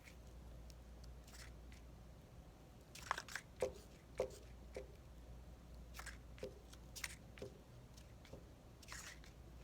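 Faint scattered scrapes and paper rustles from a glue stick being rubbed along the edges of a paper cut-out, in short bursts of strokes over a low room hum.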